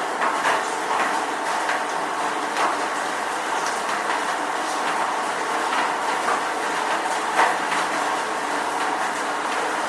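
Light rain falling: a steady, even hiss with scattered individual drop ticks, one of them louder about seven and a half seconds in.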